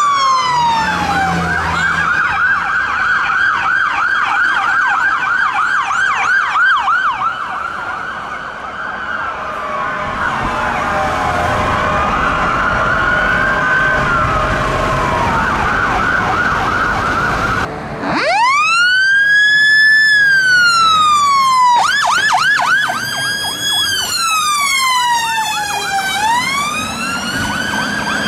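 Electronic sirens of British fire engines responding: several overlapping, some in a fast yelp and others in slow wails. About 18 seconds in a single clear siren takes over, swinging between a slow rising and falling wail and a fast yelp.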